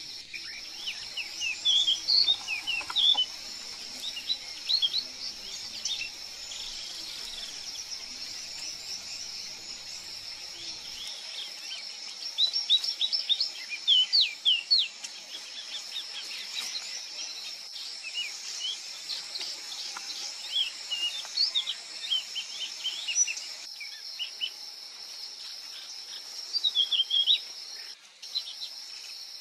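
Many short, high bird chirps in several quick runs, over a steady high-pitched insect drone in the forest background.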